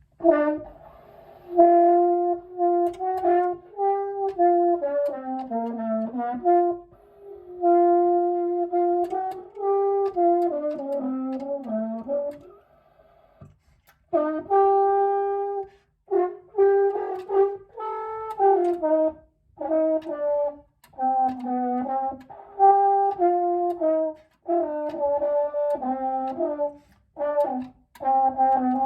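French horn played by an untaught beginner holding the trigger, running up-and-down scale patterns an octave up. The notes come in several phrases of stepping pitches, broken by short pauses for breath.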